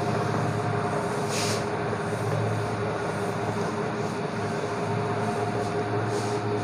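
Steady machine hum, a low drone with two higher steady tones, running under soft rubbing as a cloth wipes a whiteboard clean.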